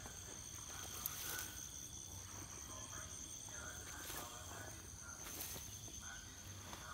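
Steady high-pitched trilling of crickets or other insects in a field, with a few brief rustles.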